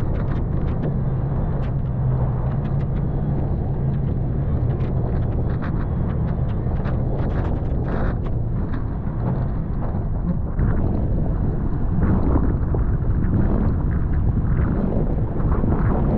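Toyota FJ Cruiser's 4.0 L V6 running at low speed, crawling up a snowy dirt trail in four-wheel drive, with scattered clicks and knocks from the trail. It gets a little louder about ten seconds in.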